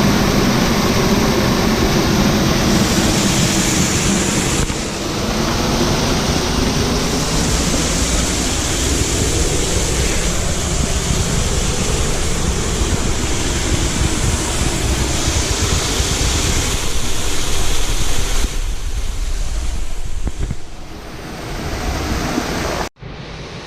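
Waterfall rushing steadily, a dense, even noise of falling water. It eases off briefly near the end and then cuts off abruptly.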